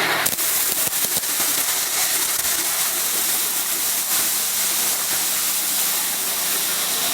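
Miniature steam locomotive hissing steam steadily, with a few sharp clicks in the first second.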